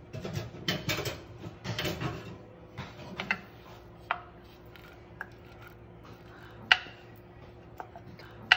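Glass measuring cup clinking and tapping against a metal saucepan as corn syrup is poured from it: a scatter of short sharp clicks, busier in the first three seconds, with two louder clinks, one about two-thirds of the way through and one at the very end.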